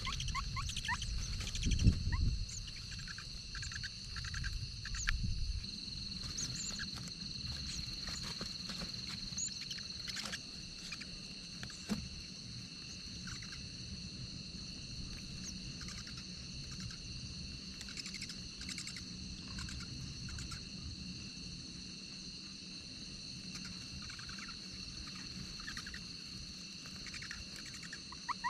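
Forest ambience: a steady high insect drone with many short bird chirps scattered through it, and a few low rumbles in the first five or six seconds.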